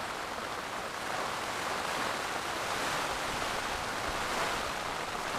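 Heavy rain lashing down on a solo tent's fabric, heard from inside the tent: a steady, dense hiss that swells a little midway.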